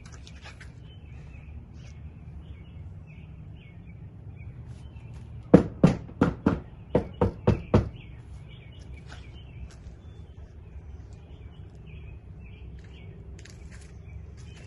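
A quick run of about eight sharp knocks in the middle, the first the loudest, over a steady low outdoor rumble with birds chirping faintly throughout.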